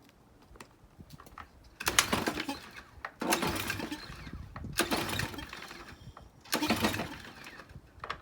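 Briggs & Stratton pressure-washer engine being pull-started four times, each yank of the recoil starter cord a short whirring rattle, without the engine catching: the owner blames carburetor varnish from gas left in it over the winter.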